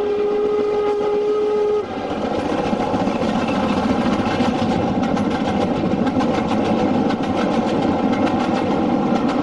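An LMS Black 5 steam locomotive's whistle sounds one long steady note that cuts off suddenly a couple of seconds in. The noise of the train running at speed follows, with a fast regular beat.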